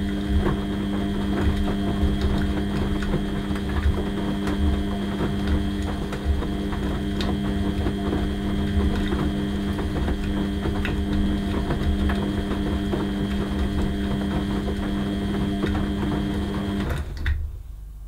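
Beko WX84243OW front-loading washing machine in its wash phase, the drum turning a wet load with a steady motor hum. The sound cuts off about a second before the end, followed by a single click.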